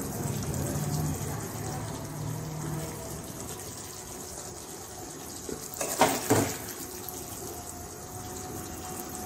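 A steel spoon scraping through thick, wet curry gravy in a stainless steel pan, ladling it onto a plate with soft sloshing. The spoon knocks sharply a couple of times about six seconds in.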